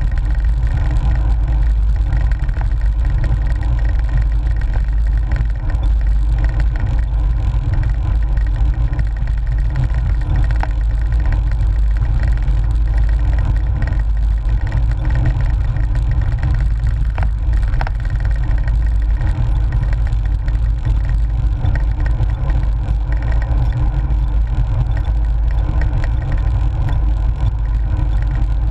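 Steady, loud low wind rumble and rolling road noise picked up by a GoPro on the handlebars of a cyclocross bike in motion, with a couple of brief knocks about two-thirds of the way through.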